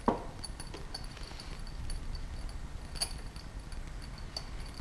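Scattered light clicks and taps of a spark plug tool on the cylinder head of a Triumph Daytona 1200 four-cylinder engine as the last spark plug is worked loose by hand.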